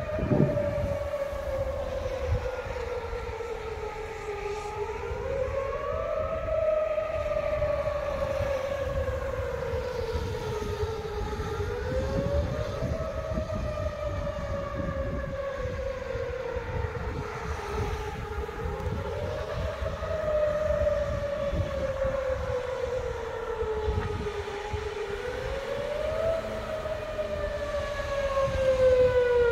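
Outdoor tornado warning siren wailing. Its pitch rises quickly and then falls slowly, once about every six and a half seconds, over a steady low rumble.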